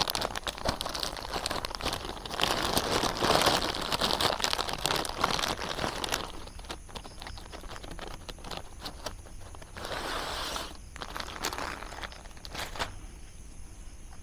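Crinkling and rustling, dense for the first six seconds, then thinning to scattered clicks with one more short burst about ten seconds in.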